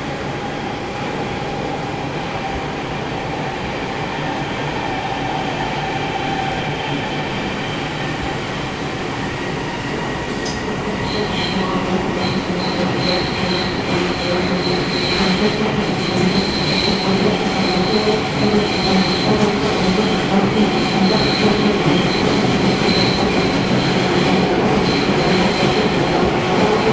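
Interior running sound of a Sendai City Subway 1000N series train: a steady rumble of wheels on rail with the air conditioning running. About halfway through a high, steady squeal joins in and the whole sound grows gradually louder.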